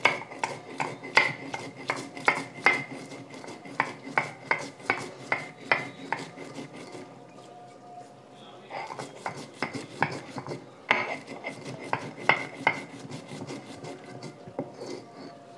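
Stone roller pounding and grinding roasted cumin seeds and dried red chilli on a sil-batta grinding stone: sharp stone-on-stone knocks about three a second, with rasping scrapes between. A quieter lull comes about halfway, then the knocking resumes and thins out near the end.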